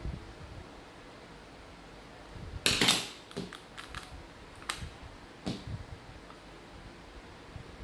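Plastic case of a small handheld Bluetooth keyboard clicking and snapping as it is pried at and handled, with a loud crackling burst about three seconds in and a few single sharp clicks after it.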